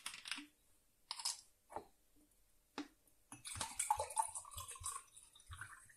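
Plastic bottle of sparkling mineral water opened, with a short hiss from the cap about a second in and a few clicks. It is then poured into a glass, splashing and fizzing for about a second and a half.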